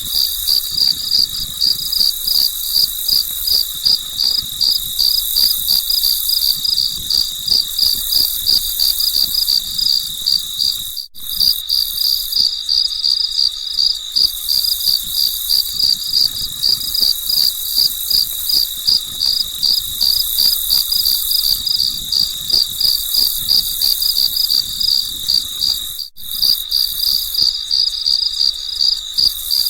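Crickets chirping in a steady, even, high-pitched pulse that cuts out briefly twice, about 11 and 26 seconds in.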